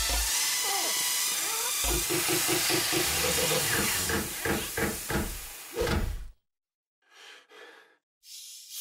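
Cartoon water jets hissing as they spray from burst pipes, with pitched pulsing sound effects over the spray. The hiss cuts off suddenly about six seconds in, followed by three short noisy sounds.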